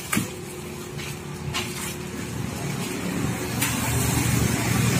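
Black plastic bag rustling and crinkling as a scope is unwrapped from it, with a few sharp crackles, over a low background rumble that slowly grows louder.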